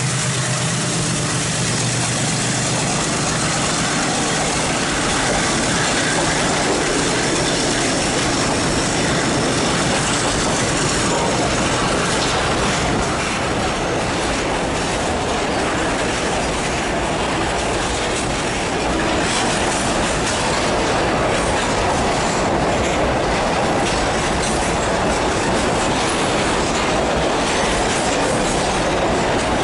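A diesel locomotive coupled within an empty freight train runs past close by under load, its engine fading in the first second or two. A long line of empty boxcars then rolls past, with steady wheel-on-rail noise.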